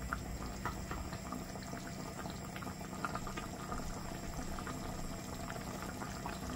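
Chicken curry sauce simmering in an open pot: a steady bubbling with small scattered pops.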